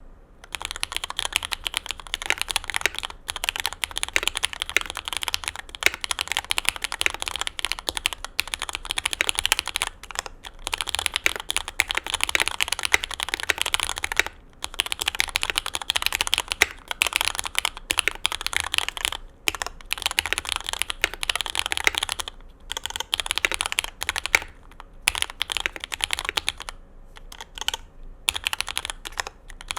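Fast continuous typing on a custom mechanical keyboard with GMK keycaps on SP-Star 80g switches lubed with Tribosys 3204: a dense stream of key clacks, broken by a few brief pauses.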